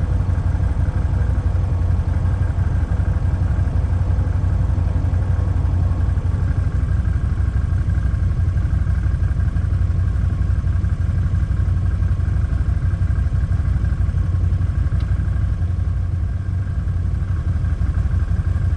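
ATV engine running steadily at idle, a low, even rumble.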